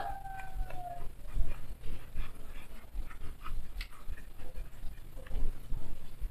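Knife scraping spines off fresh nopal paddles, a scatter of faint scratchy clicks and light knocks. Over the first second a thin, slightly falling whine, an animal whimpering, most likely a dog.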